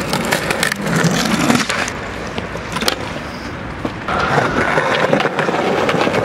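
Skateboard wheels rolling over pavement, a continuous rumbling noise broken by several sharp clacks and knocks of the board.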